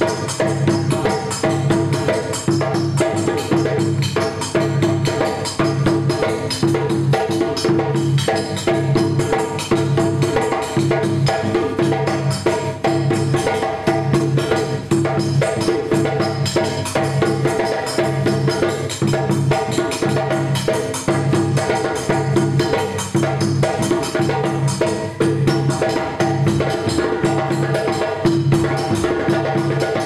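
Djembe and dunun drums playing together in a steady, repeating West African rhythm, the stick-struck dunun giving low tones under the hand-played djembe.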